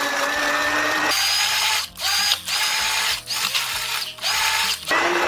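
Immersion hand blender motor whirring as it purées avocado in a plastic container. It runs steadily, then, from about a second in, in a string of short bursts with brief cut-outs at a higher pitch, and settles back to a steady, lower run near the end.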